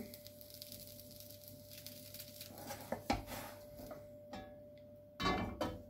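Faint knocks of a wooden spatula in a nonstick frying pan as a pan-fried börek is lifted and laid back down. Near the end there is one short, louder clatter.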